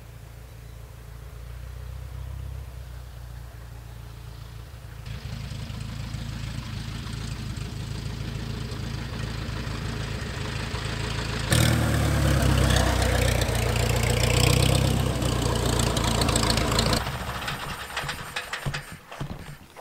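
Light single-engine propeller plane's piston engine running at low power as it taxis, the propeller and engine growing louder as the plane comes close. Near the end the sound drops off and turns uneven.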